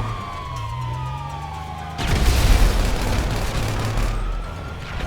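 Video game audio: a police siren wailing down in pitch, cut across about two seconds in by a loud blast, then rising again near the end, with a vehicle engine humming underneath.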